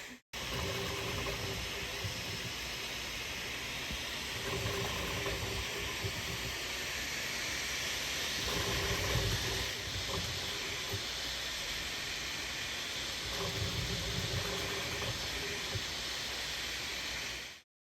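Bambu Lab A1 Mini 3D printer running a print: a steady fan hiss, with low motor tones that come and go every few seconds as the print head moves.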